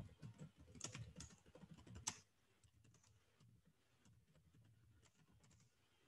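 Faint computer keyboard typing: a quick run of keystrokes that stops about two seconds in, the last stroke the sharpest.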